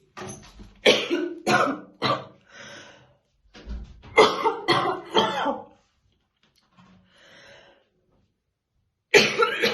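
A woman's heavy, deep smoker's morning cough, in fits. There are three harsh coughs about a second in, three more around four seconds in, a short breath between them, and another fit begins near the end.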